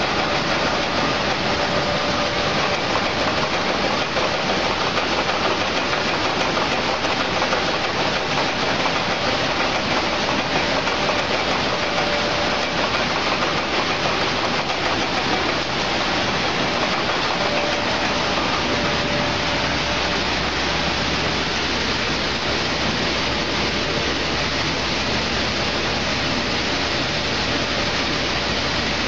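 Raisin color sorting machine running: a steady, dense mechanical rush with hiss as raisins stream down its chutes, over a faint steady hum.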